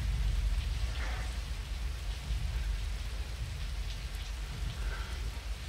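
Steady heavy rain hissing down, over a deep, steady low rumble.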